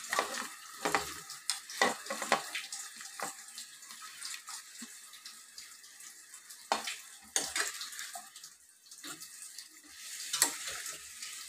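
Fried chicken pieces tipped into a steel kadai of garlic sauce and stirred with a steel spoon: repeated irregular clinks and scrapes of metal on the pan, over a faint steady hiss.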